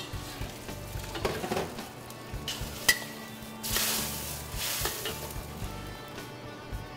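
Water poured into a hot wok of sauce sizzles and hisses as it steams, with a metal wok spatula stirring and scraping against the wok. One sharp clank about three seconds in, then two louder surges of sizzling around four and five seconds in.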